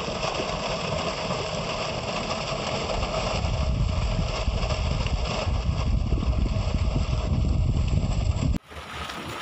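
Water gushing from an irrigation tubewell's outlet pipe and splashing onto the ground, with the electric pump running steadily underneath. It cuts off abruptly near the end.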